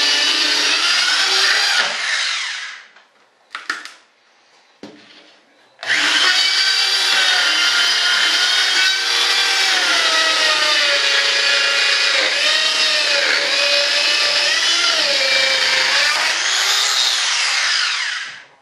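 Handheld power tool trimming the edge of a cured fibreglass-and-resin layup: a high whine whose pitch sags and wavers as it cuts. It stops about two and a half seconds in, with a couple of small clicks in the gap. It starts again about six seconds in, rises in pitch briefly and stops near the end.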